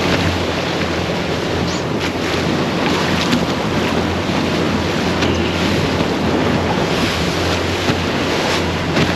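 Boat's outboard engine running steadily at trolling speed as a low hum, with wind buffeting the microphone and water rushing past the hull.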